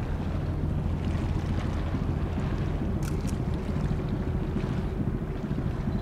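Steady low drone of a large ship's engines and machinery, with wind rumbling on the microphone. Two brief high clicks about halfway through.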